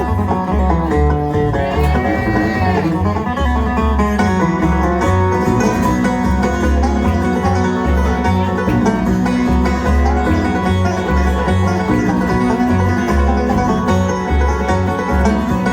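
Live bluegrass band playing an instrumental break: banjo and guitar picking over a steady bass line.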